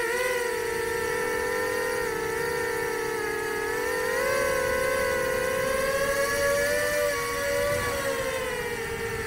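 Nazgul 5-inch FPV quadcopter's brushless motors and two-blade propellers whining in flight, the pitch drifting with throttle: it rises a little about four seconds in and again around six to seven seconds, then drops near the end.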